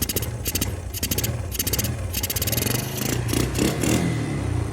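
Yamaha Grizzly 125 ATV's small single-cylinder four-stroke engine running under throttle, a steady low drone with a scratchy rattle repeating about two to three times a second. The engine is one that bogs down and won't idle before its tune-up.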